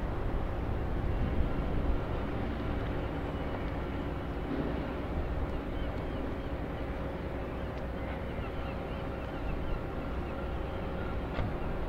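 Fishing-harbour ambience: a steady low rumble of boat engines and machinery running at the quay, with a constant hum.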